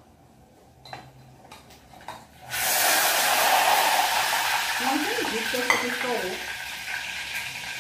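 Hot oil sizzling as pastéis deep-fry in a saucepan, starting suddenly and loudly about two and a half seconds in and carrying on steadily. Before it come a few light clicks of a metal skimmer against the pan and plate.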